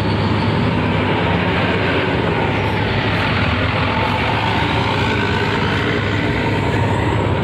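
Large coach bus driving past: a steady low engine drone with tyre and road noise, and a faint sweep in pitch near the middle as it goes by.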